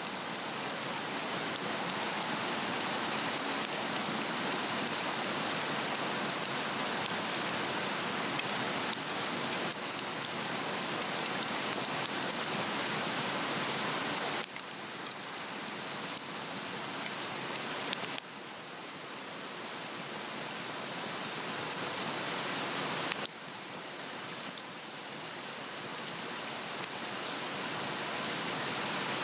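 Swedish torch (a cross-cut cedar log) burning on a fire stand: a steady hissing rush of flame with faint scattered crackles. The level creeps up and drops suddenly a few times.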